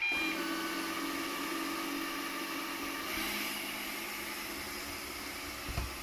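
AZMKOO V701S robot vacuum cleaner running: a steady suction and brush-motor whir with a low hum that steps down in pitch about three seconds in.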